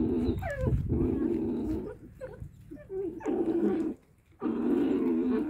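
Arctic wolf pups growling as they feed on a big meaty bone, in long rough rumbles broken twice by short pauses, with a few brief whining squeals between.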